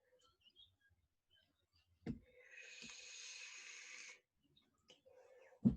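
Faint desk handling while a computer mouse that has stopped working is fiddled with: a soft knock, about two seconds of faint hiss, then a louder knock near the end.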